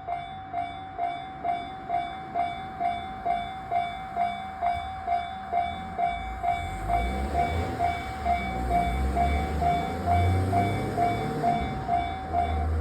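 Japanese level-crossing warning bell ringing at about two strikes a second. From about six seconds in, a Shonan-Shinjuku Line train passes through the crossing, its rumble and wheel noise growing under the bell.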